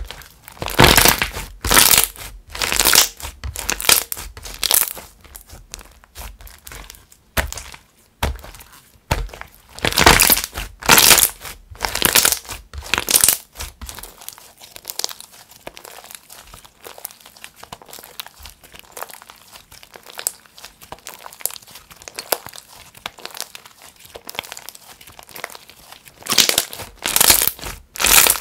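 Thick white slime being squeezed and kneaded by hand, giving wet, crackly squishes in repeated bursts about once a second. The squishes grow softer and sparser through the middle and loud again near the end.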